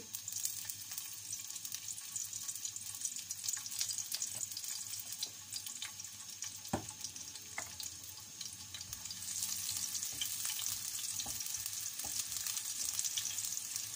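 Chopped garlic sizzling and crackling in hot cooking oil in a metal frying pan; the sizzle grows louder about nine seconds in as the oil heats. Near the end a wooden spatula stirs through the garlic.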